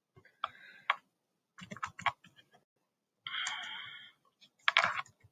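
Computer keyboard being typed on: short clusters of key clicks come unevenly, with a brief noisier stretch a little past halfway.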